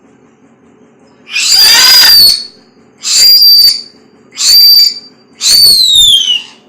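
A pet bird, likely a parrot, gives four loud whistled screeches. The first is harsh and drawn out, and the last slides downward in pitch.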